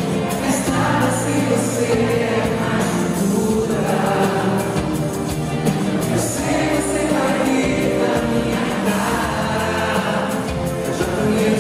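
Live concert music: a band playing a slow song with singing over it.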